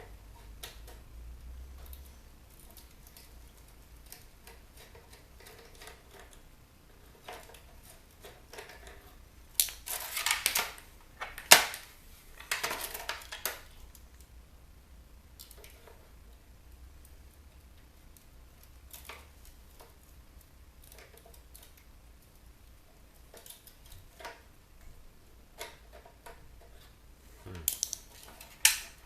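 Screwdriver clicking and scraping against stubborn, deep-set screws in a bug zapper's plastic housing, with scattered small knocks of handling. Louder bursts of clattering come about a third of the way in and again near the end.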